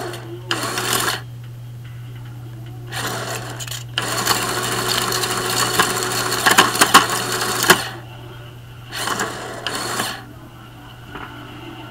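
Homemade Lego shredder crunching and crinkling aluminum foil as the foil is fed through, in several bursts, the longest running about four seconds from four seconds in, with sharp clicks, over a steady low hum.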